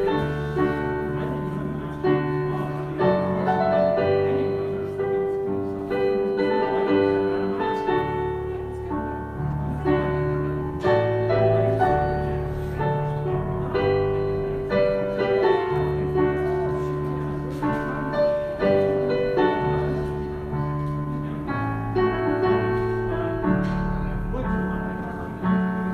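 Slow piano music, a melody over held bass notes.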